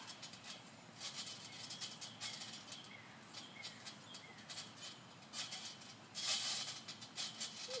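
Trampoline springs rattling and creaking in irregular bursts as children bounce and tumble on the mat, loudest about six seconds in. In the middle a bird calls a run of short falling notes.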